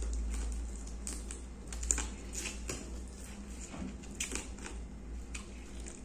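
Close-up eating sounds: scattered small clicks and smacks from mouths and fingers as fried fish and rice are eaten by hand off steel plates, over a steady low hum.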